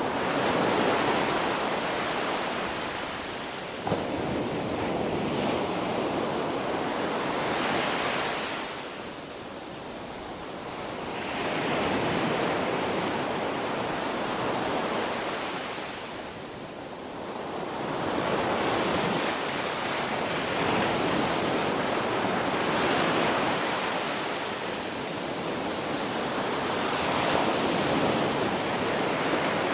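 Sea waves breaking and washing up a beach, a continuous surf that swells and eases every several seconds, with a brief click about four seconds in.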